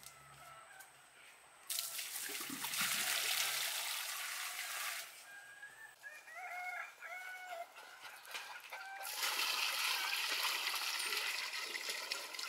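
Water poured from a bucket splashing into a small cement pool, in two spells of a few seconds each. Between them, a rooster crows in short broken phrases.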